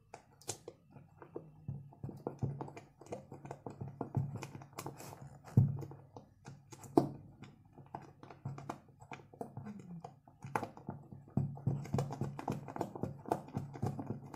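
Silicone spatula stirring a sticky white glue-and-toothpaste slime mixture in a glass bowl: an irregular run of wet, sticky clicks and scrapes, with a few sharper knocks of the spatula against the glass, the loudest about halfway through.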